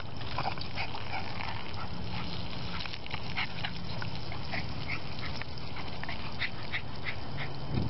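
A small dog playing in a garden hose stream, snapping at the water and making short, repeated excited noises over the spatter and hiss of the spray.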